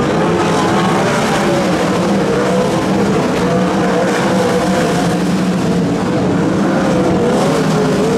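A pack of 360 winged sprint cars with their V8 engines running hard in the race, the engine notes wavering up and down as the cars go through the turn on the dirt track.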